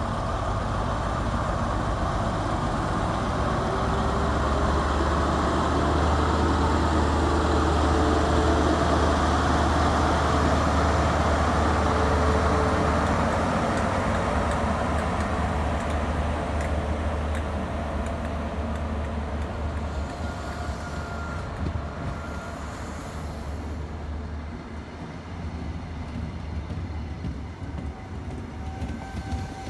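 Class 43 HST power car's MTU diesel engine idling, then powering up as the train pulls away. A deep engine rumble swells about four seconds in and holds loud, then eases as the train's coaches roll past.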